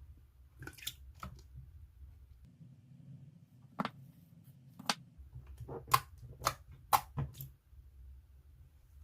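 Hands pressing and squishing slime, giving sharp wet clicks and pops, about eight of them, most coming close together in the second half, over a faint low hum.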